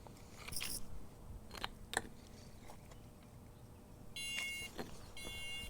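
Smoke detector's alarm sounder giving two short beeps about half a second apart, starting about four seconds in, each lasting about half a second.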